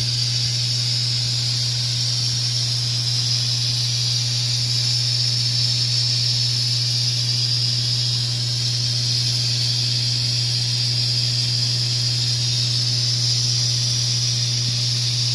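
Aquarium air pump running steadily: a constant low hum with a steady hiss of air above it.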